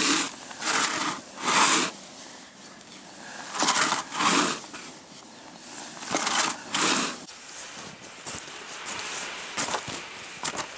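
A man working out with a car tyre in snow: short rushes of breath and crunching noise come in groups, the first group right at the start, then pairs about four and six and a half seconds in, keeping time with the lifts, with fainter knocks near the end.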